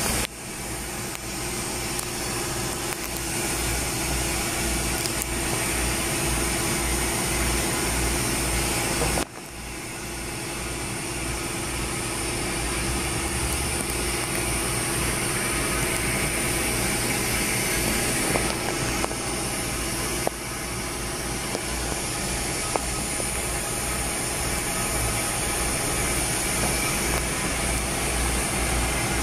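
A steady machine drone with a low, pulsing hum under an even hiss, dropping out abruptly about nine seconds in and again about twenty seconds in before carrying on.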